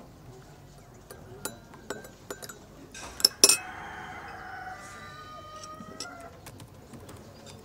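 Two sharp knocks a little over three seconds in, followed by a drawn-out, wavering animal call lasting about two and a half seconds, over scattered light clicks.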